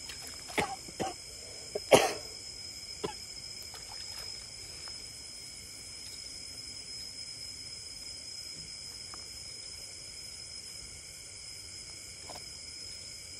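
Steady, high-pitched chorus of insects, with a few short, sharp knocks in the first three seconds, the loudest about two seconds in.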